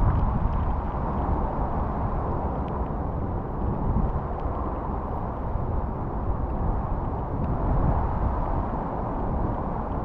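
Swift, swollen river running with a steady rushing noise, heaviest in the low range, with a few faint clicks.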